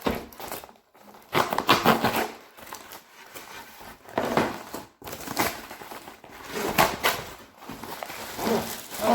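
Packaging being handled and opened by hand: irregular crinkling and rustling in several loud spells, with quieter handling between them.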